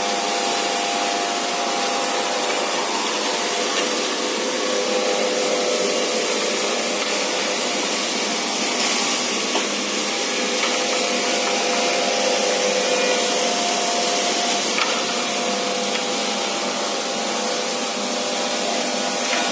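Woodworking machinery and dust-extraction blowers running together on a factory floor making wooden handles: a steady rushing noise with a constant hum of a few tones underneath.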